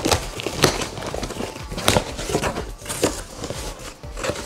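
Cardboard shipping box being opened by hand: the tape tears and the flaps rustle, in a string of sharp rips and crinkles.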